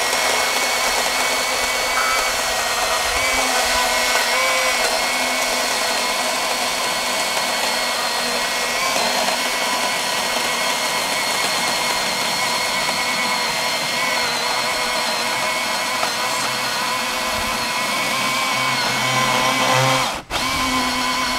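Cordless electric chainsaw running steadily under load as it cuts through a log, a steady motor-and-chain whine. It cuts out for an instant near the end and picks straight back up.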